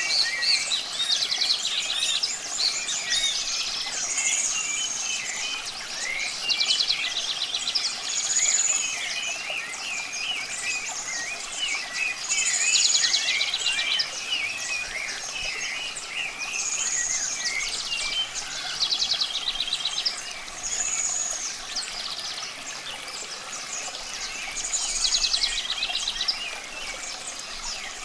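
Songbirds singing, one repeating the same phrase about every four seconds: a high slurred whistle followed by a rapid trill, with smaller chirps scattered between, over a steady wash of running water.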